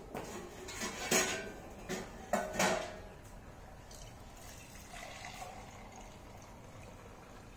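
Steel pots clanking against each other and the floor as they are handled, then milk poured from a steel pail through a strainer into a small steel container, a steady soft pouring from about three seconds in.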